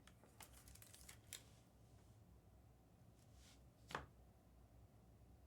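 Faint rustling and light clicks of trading cards being handled and slid against each other, with one sharper click about four seconds in.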